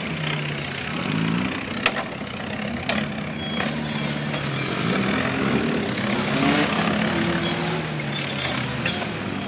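Land Rover Defender 90 engine running at low revs, pulling the truck through deep cross-axle ruts, the revs rising and getting louder about halfway through. A few sharp clicks come about two and three seconds in.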